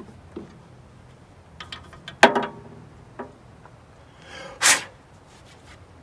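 Handling noises at a sawmill's hydraulic fluid reservoir and fluid bottle: a few small clicks, one sharp clank with a brief ring about two seconds in, and a short scrape near the five-second mark.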